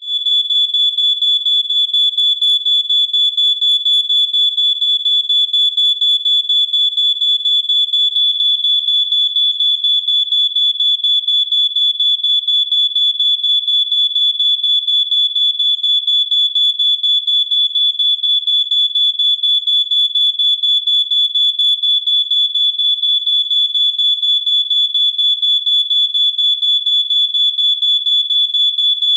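Smoke detector alarm sounding: a loud, shrill high-pitched tone that pulses rapidly and evenly, starting suddenly and going on without a break.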